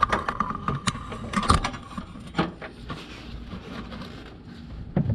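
Hand tools on a car's suspension bolt: a socket wrench being worked on a tight, over-torqued bolt to break it loose, with scattered sharp metal clicks and knocks, the loudest about one and a half seconds in, and a thin ringing tone over the first two seconds.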